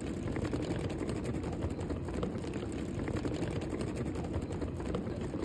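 Steady low rumble of a running vehicle engine, with a fast, rattly texture.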